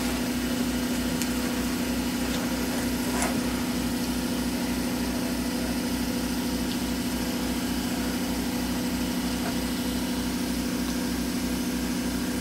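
A motor running steadily: an even mechanical hum with a low throb about three times a second.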